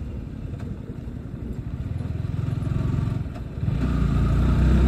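Motorcycle engine running at low speed while easing over a speed breaker. Its pulsing note swells a little, dips briefly about three and a half seconds in, then comes back louder as the bike picks up speed.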